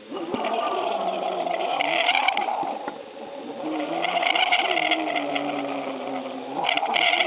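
A motor running steadily, its pitch wavering up and down. Louder stretches of higher-pitched noise come and go about every two to three seconds.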